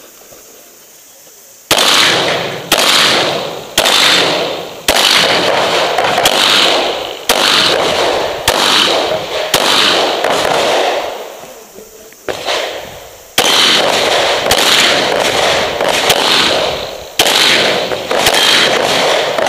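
A handgun firing a rapid course of fire, starting about two seconds in, with shots in quick strings, each followed by a long echoing tail. There is a short lull near the middle before the shooting resumes.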